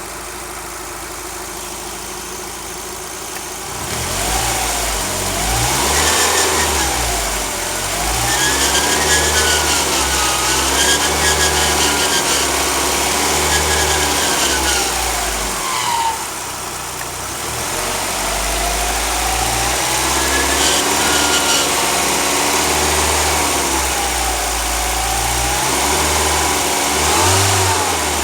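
A 2004 Mazdaspeed Miata's turbocharged 1.8-litre four-cylinder idling, then revved and held at raised speed with the pitch rising and falling, dropping back briefly past the middle before revving again. Under it runs a buzzing that the owner thinks comes from the alternator.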